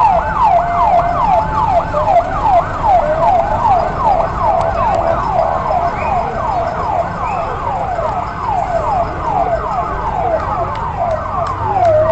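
Fire engine sirens sounding together in a fast yelp, overlapping falling sweeps about two to three a second, over the low rumble of the trucks. Near the end one siren slides into a slow rising wail.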